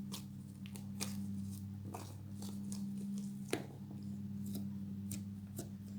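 Sticky fluffy slime being kneaded and pulled by hand: scattered soft squelches and sharp little clicks, the sharpest about three and a half seconds in, over a steady low hum.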